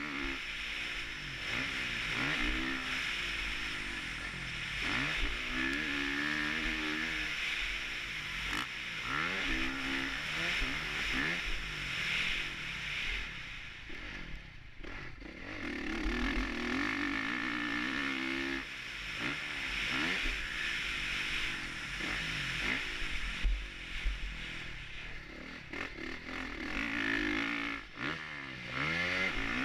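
Honda 450 motocross bike's four-stroke single-cylinder engine revving up and falling back over and over as the rider accelerates, shifts and rolls off through the track sections. There is steady wind rumble on the helmet-mounted camera, a brief let-off about halfway, and a sharp thump about two-thirds through.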